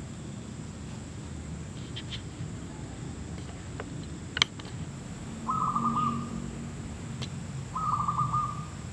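Zebra dove calling: two short, quickly stuttering coos about two seconds apart. A single sharp tick comes a second before the first coo.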